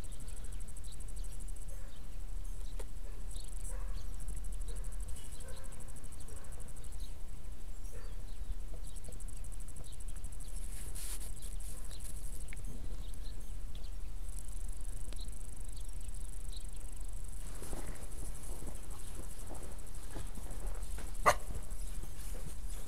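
PR600C trail camera's built-in microphone recording its own steady low hum and high electronic whine, with faint rustles and small sounds from a dog right at the camera. A stretch of louder rustling toward the end, and one sharp click near the end.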